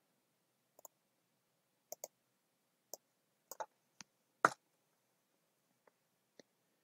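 Faint, scattered clicks of a computer mouse and keyboard as text is selected and replaced in a text box. About ten separate clicks come at uneven intervals, the loudest one about four and a half seconds in.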